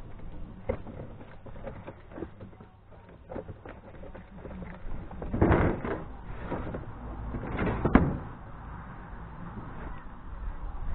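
Large cardboard box being handled and shifted on a sheet-metal tabletop: scattered light knocks and scuffs, with two louder scraping rustles about five and a half and eight seconds in.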